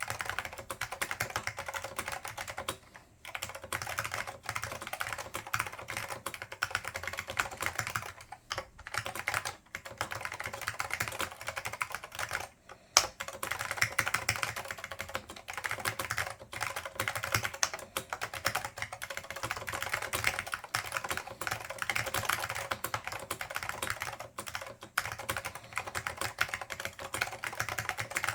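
Fast, continuous typing on a Dell AT101 keyboard with Alps SKCM Black (Pine) switches, lightly lubed, under Alps doubleshot keycaps: a dense run of clicky keystrokes broken by a few short pauses, with one louder keystroke about thirteen seconds in.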